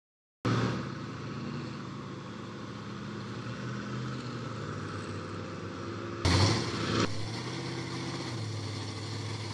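Engines of lifted pickup trucks running as they drive through a mud-bog water pit, coming in abruptly about half a second in. About six seconds in there is a sudden loud rush of noise lasting under a second, with a smaller one right after.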